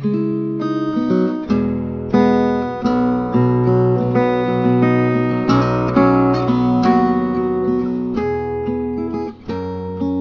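Background music: an acoustic guitar playing a series of plucked and strummed chords.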